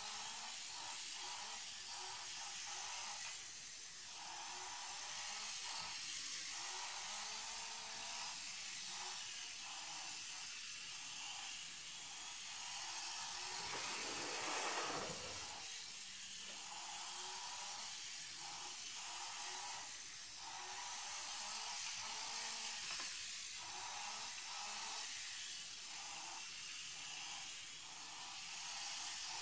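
Small electric motor of a mini RC car whirring, its pitch rising and falling again and again with the throttle, over a steady hiss. A louder burst of noise comes about halfway through.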